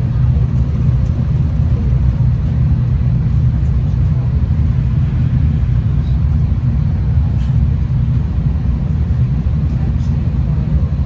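V/Line passenger train running at a steady pace, a steady low rumble heard from inside the carriage, with a few faint ticks.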